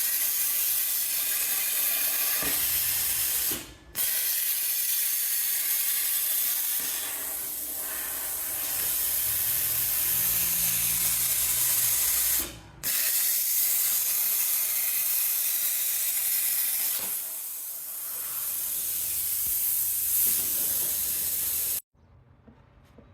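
A loud, steady hissing noise, like air or spray, that drops out briefly twice and cuts off abruptly near the end.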